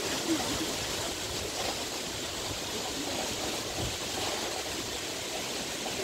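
Storm wind gusting through coconut palms and trees: a steady rushing of wind in the fronds and leaves.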